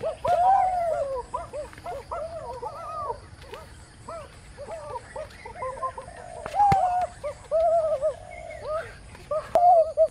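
A chorus of many short animal calls, each rising and falling in pitch, overlapping and repeating throughout, with a sharp click about two thirds of the way in and another near the end.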